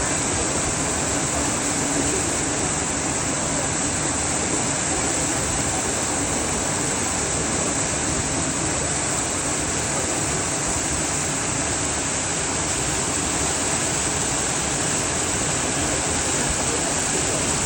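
Hot spring water of the Yubatake flowing, a steady, even rush of running water.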